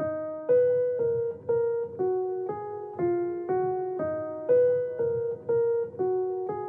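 Background music: a simple melody of struck notes, about two a second, each note fading after it sounds.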